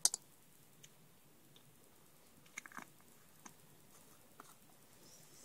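Two sharp clicks right at the start, then a few faint, scattered clicks and taps of small objects being handled.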